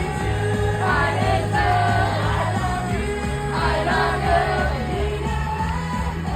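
Pop-style music with a singing voice over steady bass notes.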